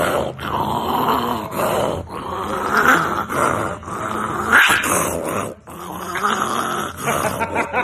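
Small dog growling in long runs with brief breaks, guarding a chew from the hand petting its head.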